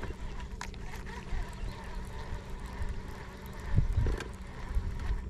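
Wind buffeting the microphone in uneven low gusts, over a steady low hum, with a few light clicks.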